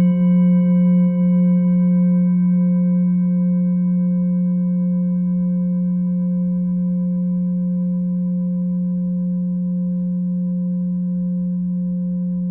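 A full moon singing bowl from a seven-chakra set rings on after being struck: a strong low hum with several higher overtones above it, fading slowly. The low tone wavers for the first couple of seconds.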